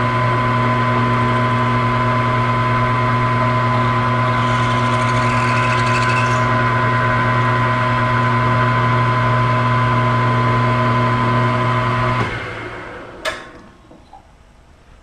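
Small milling machine's motor and spindle running steadily while an 11/64-inch drill bit enlarges a rivet hole in a carrier bearing retainer. About 12 seconds in the motor is switched off and winds down, followed by two sharp clicks.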